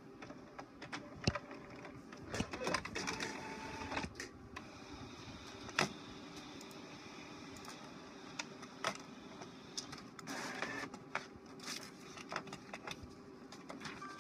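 HP Officejet inkjet all-in-one printer printing a page: a steady mechanical hum with frequent clicks from the paper feed, and a couple of longer whirring passes of the print mechanism, one a few seconds in and one about ten seconds in.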